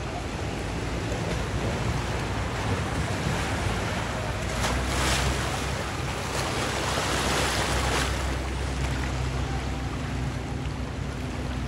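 Floodwater washing and splashing as a Jeep Wrangler wades through it, over a low steady engine rumble, with wind on the microphone. The rushing swells from about four and a half to eight seconds in.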